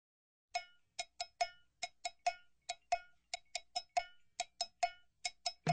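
Cowbell playing a syncopated rhythm on its own as the intro of a song: about twenty short, bright, ringing strikes starting about half a second in.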